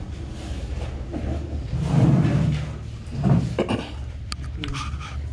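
Dull thuds and handling knocks over a steady low hum, with a couple of sharp clicks near the end.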